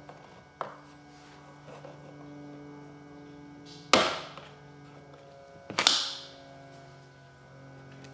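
Two loud, sharp knocks about two seconds apart, each with a short ringing decay, and a lighter tap near the start, over a steady low hum.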